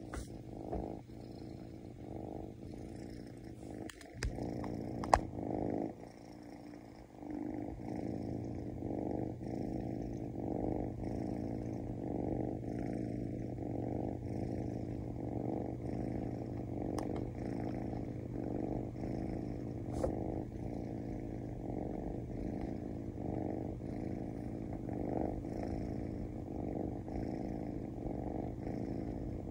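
Ginger kitten purring continuously, the purr pulsing in a regular rhythm with each breath in and out. A few sharp clicks come a few seconds in.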